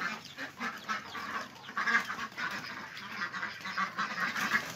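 A flock of domestic Vietnamese ducks quacking over and over, many short calls overlapping.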